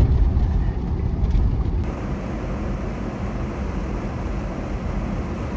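Steady engine and road rumble heard from inside the cab of a Class C motorhome while it is being driven.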